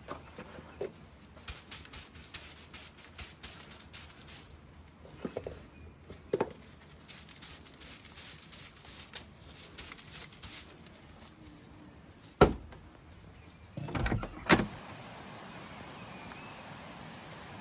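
Twig broom scratching in many quick strokes on a wet porch step, then a few heavy knocks, then the steady hiss of rain.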